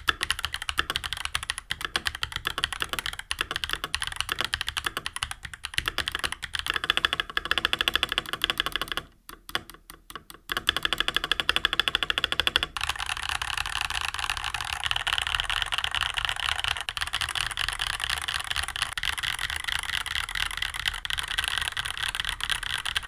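Typing on a stock Redragon Garen K656 Pro mechanical keyboard: Redragon custom purple switches in a steel plate with doubleshot ABS keycaps. Separate key presses at first, a brief lull about a third of the way in, then fast continuous typing through the second half.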